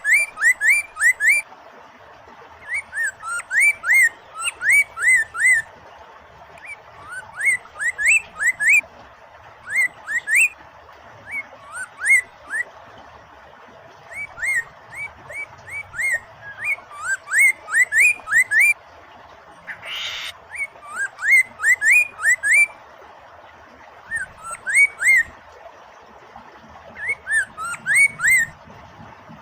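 Poksay mandarin laughingthrush singing: runs of quick, upward-sweeping whistled notes in bursts every second or two, over a steady background of running water.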